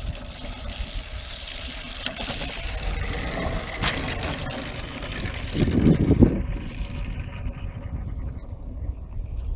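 Steel runners of an ice windsurf board hissing and scraping across lake ice as the board sails past close by, the hiss swelling and then fading away. A low rumble of wind on the microphone runs underneath, with a loud low surge about six seconds in.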